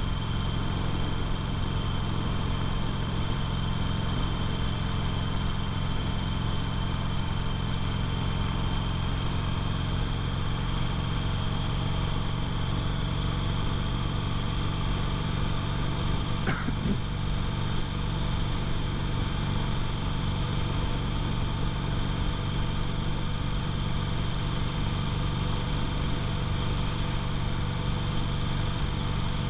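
2008 Harley-Davidson Sportster 883L's air-cooled 883 cc V-twin engine running steadily at cruising speed on the road.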